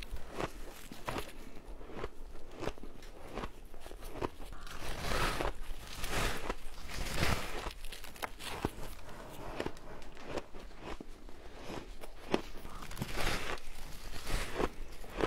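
A person biting and chewing blocks of frozen, coloured shaved ice: crisp crunches repeating irregularly, several to the second at times.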